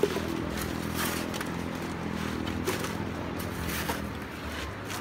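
A small engine running steadily, with scattered knocks and scrapes; the engine sound fades about four seconds in.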